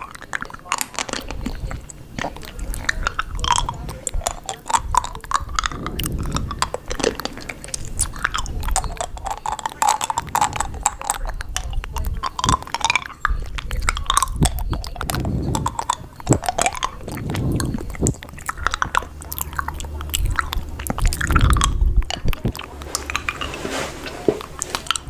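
Close, loud chewing and crunching with many quick, irregular clicks.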